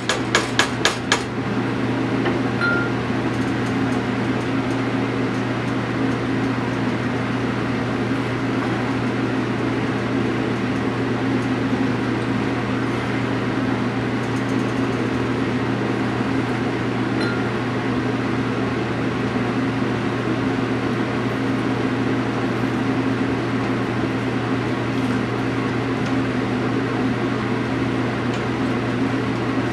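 Steady mechanical hum, with a handful of quick sharp knocks in the first second.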